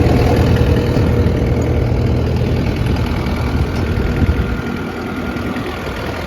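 Kubota 3.8-litre diesel engine of a Takeuchi TL12 tracked skid steer running steadily at idle, a little quieter over the second half.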